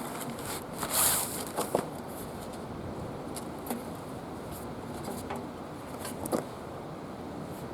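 Handling sounds of unboxing: a short rustle of packaging about a second in, then a few light clicks and taps, over a steady background hiss.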